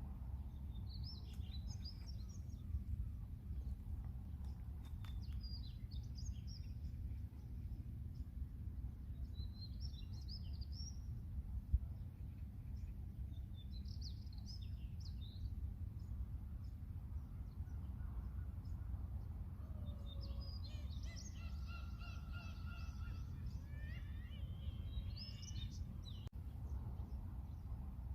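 Birds chirping in short high bursts every few seconds, then a longer run of layered calls with several tones about two-thirds of the way through, over a steady low outdoor rumble.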